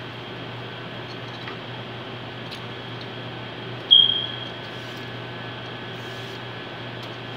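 Steady hum of kitchen ventilation, with a few faint scrapes of a hand peeler on a celery stalk. About four seconds in, a short, loud high-pitched ping rings out and fades within half a second.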